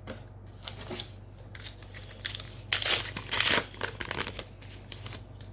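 Foil trading-card booster pack wrapper being crinkled and torn open, in a run of short crackling bursts that are loudest about three seconds in.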